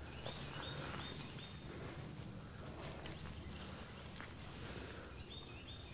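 Open-woodland ambience: a steady high-pitched insect drone, with a bird calling a quick run of about four high notes near the start and again near the end.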